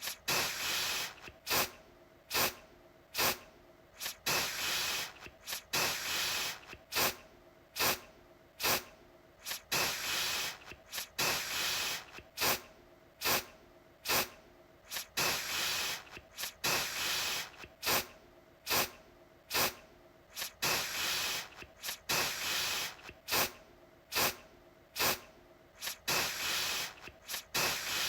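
Aerosol deodorant can spraying: a rapid string of hissing sprays, short puffs mixed with longer bursts, about one to two a second, each cutting off sharply.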